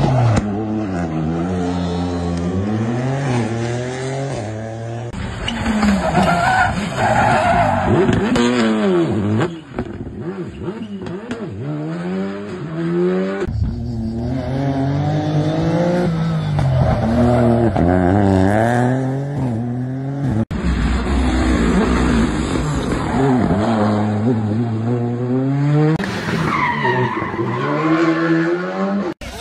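Rally car engines revving hard and falling away through gear changes and corners, with tyres skidding. The sound jumps abruptly to a different car every few seconds.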